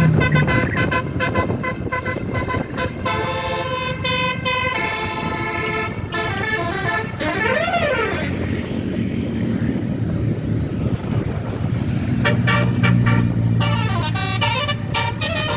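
Telolet bus horn, a multi-tone musical horn, playing quick runs of short notes. About halfway through comes a single rising-and-falling pitch glide, then a quieter pause before the note runs start again.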